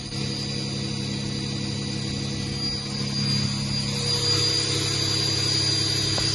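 YCM NMV106A vertical machining center's spindle running at a steady speed: a steady high whine over a low machine hum, growing somewhat louder about three seconds in.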